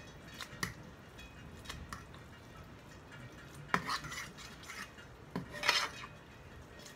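A utensil stirring and lifting cooked ramen noodles in a metal pan, with scattered clinks and scrapes against the pan, the loudest about four seconds in and again near the end.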